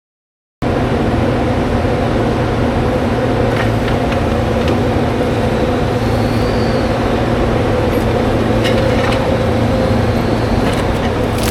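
Timberjack 608's diesel engine running steadily, heard from inside the cab, with scattered sharp clicks and knocks and a faint high whine that rises and falls a few times. It cuts in suddenly after a moment of silence.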